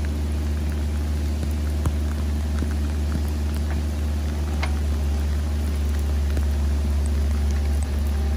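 Mini excavator's diesel engine running steadily under load as the machine crawls up a steep dirt slope, a constant low drone with a few faint ticks.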